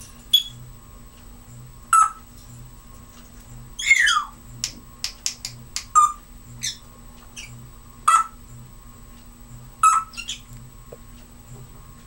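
Timneh African grey parrot giving short sharp squawks about every two seconds, with one longer falling call about four seconds in, followed by a quick run of clicks.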